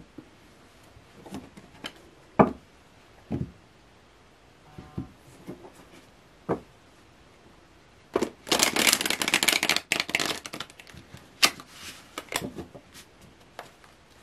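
Tarot cards being handled and tapped together on a cloth-covered table, with scattered clicks. About eight seconds in, a dense two-second burst of card shuffling, followed by more light taps.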